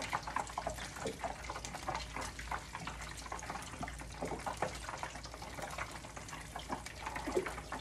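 Battered mini Monte Cristo sandwiches deep-frying in a pan of hot oil: continuous sizzling dotted with many small crackles and spits.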